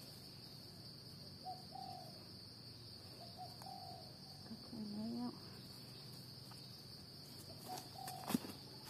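Steady high-pitched drone of forest insects, with a few short bird calls over it and a single knock near the end.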